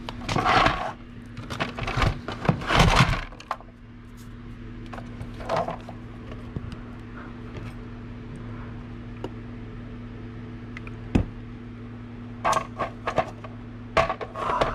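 Handling noises from working on an RC truck on a workbench: clusters of clicks, taps and light clatter as the plastic-and-aluminium chassis and a 3-in-1 oil can are moved and set down, near the start and again near the end, with one sharp knock a little before. A steady low hum runs underneath.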